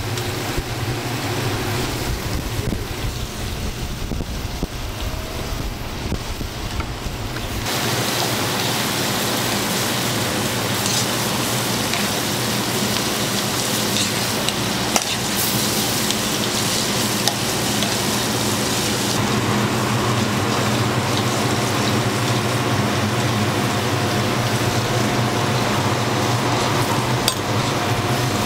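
Hotteok frying in oil on a griddle: a steady sizzle with a few clicks of utensils over a low steady hum. About eight seconds in the sizzle turns louder and brighter.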